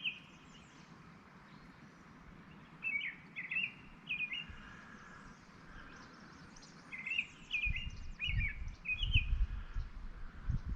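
A small songbird calling in quick clusters of short, sharply gliding chirps, a few seconds apart. A low rumble comes in near the end.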